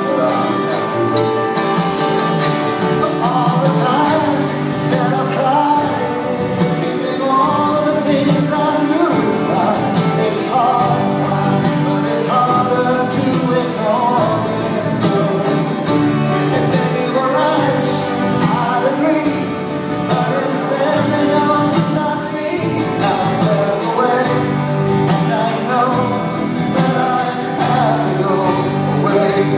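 Live band playing a folk-pop song: a male voice singing over strummed acoustic guitar and band accompaniment, heard from far back in a concert hall audience.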